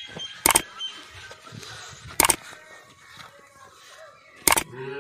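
Three sharp click sound effects, about two seconds apart, from an animated like, subscribe and bell-button overlay. Faint bird chirps are heard between them.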